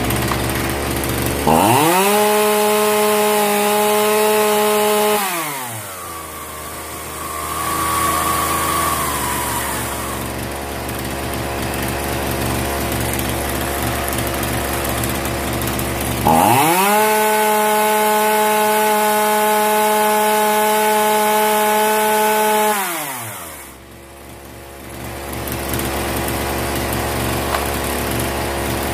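Zenoah G3800 two-stroke chainsaw engine running, revved to full throttle twice from idle: first for about four seconds, then for about six seconds after a long stretch at idle. Each rev rises and falls back quickly, as the carburetor's low, high and idle-speed screws are being set after an over-rich mixture.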